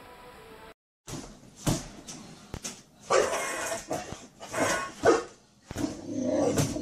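A dog barking in several short, loud bursts, with a couple of sharp knocks just before the barking starts. Faint music runs briefly at the start and cuts off.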